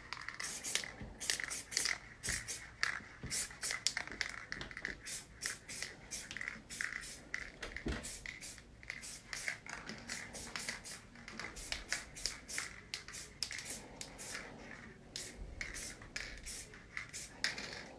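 Aerosol spray-paint can sprayed in many short, quick bursts through a paper stencil.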